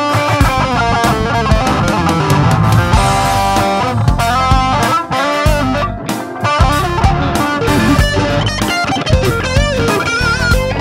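Electric guitar solo played through a JOYO BantAmp Zombie mini amp head, a fast lead line with bent notes and vibrato. Near the end the same solo comes through a Soldano Mini head.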